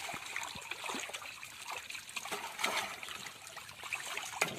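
Live pond fish thrashing in water inside a plastic drum: a steady run of small splashes and slaps, with one louder splash near the end.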